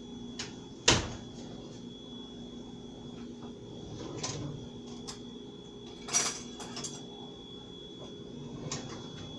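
Kitchen handling noises: a sharp knock about a second in, then scattered lighter clicks and knocks with a small clatter around six seconds, over a steady low hum.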